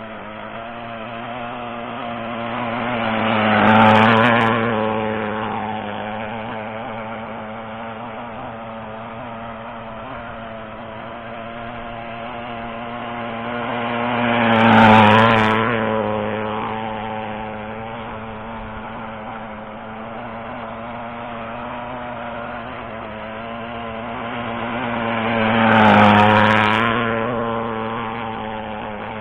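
O.S. FSα .56 four-stroke nitro engine on an RC outrigger hydroplane running at speed on laps. Its steady note swells to a peak three times, about every eleven seconds, as the boat passes close, then fades.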